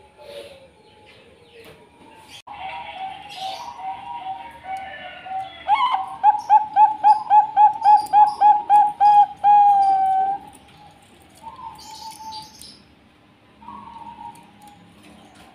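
Bangkok-type zebra dove (perkutut) singing. A few soft coos lead into a fast run of about a dozen evenly spaced, clipped coo notes, roughly three a second, which ends in one longer held note. Fainter single coos follow.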